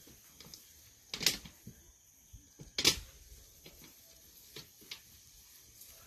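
Two short, sharp knocks or rustles about a second and a half apart, with a few fainter ticks, over a faint steady high hiss.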